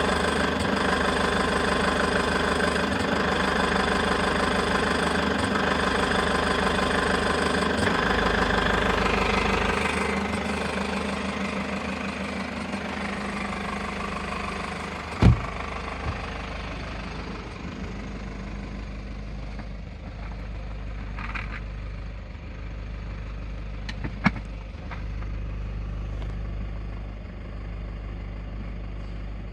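Toyota HiAce KDH206V diesel engine idling with the usual diesel clatter, mixed with an irregular shaky rattle like a washer shaken on a bolt. The owner attributes this to hunting, the intake air and fuel quantity surging back and forth. The sound grows quieter after about ten seconds, with two sharp clicks later on.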